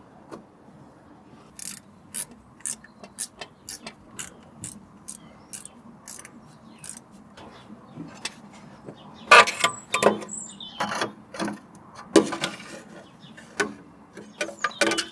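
Hand-tool work on a Porsche 996's ignition coil packs: a run of sharp clicks about two a second, then louder, irregular clatter of tools and parts around the middle and again near the end.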